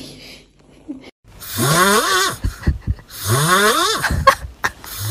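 A sleeping cat snoring: loud, harsh snores, each about a second long and rising in pitch, repeating about every two seconds.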